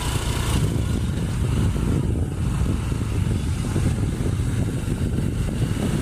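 Steady low rumble of a motorcycle engine running as it moves along a village lane.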